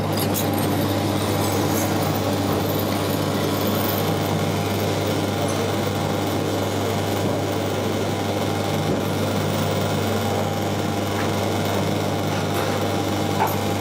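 Steady mechanical hum of kitchen equipment: a low drone with several steady tones above it.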